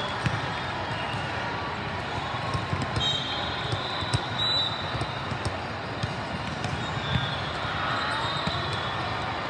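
Volleyballs bouncing and being struck in a busy gym, many small thuds over a din of background chatter. A couple of short high tones come about three and four and a half seconds in.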